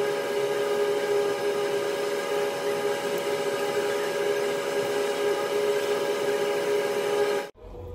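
A steady machine hum: several constant tones over an even hiss, with no change in pitch. It cuts off suddenly near the end.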